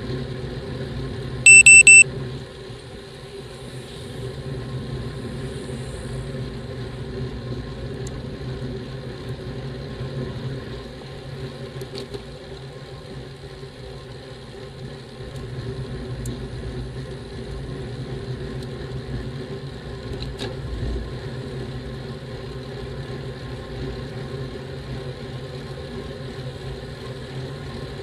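Steady low hum of road riding noise picked up by a bicycle-mounted camera on a road bike. A quick run of several short, high electronic beeps comes about a second and a half in.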